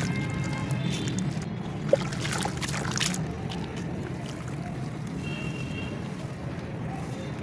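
Hands sloshing and splashing in a plastic tub of muddy red-dirt water, mostly in the first three seconds, with one sharp click about two seconds in, over a steady low hum.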